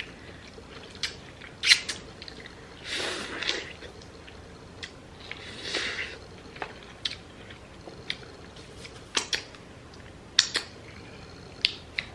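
Close-up eating sounds from peeling and eating shrimp and crab by hand: scattered sharp clicks and cracks of shell, with two longer soft noisy stretches about three and six seconds in.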